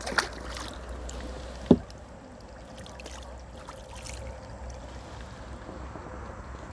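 Light water splashing and a few sharp knocks over a steady low outdoor background, the loudest knock shortly before two seconds in.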